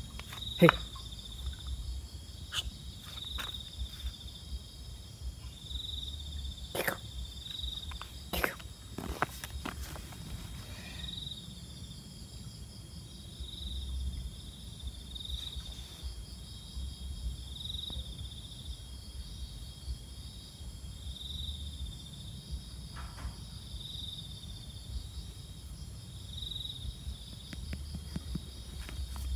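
Insects trilling steadily in several high tones, with a louder chirping pulse about every two seconds. A few sharp clicks come in the first ten seconds.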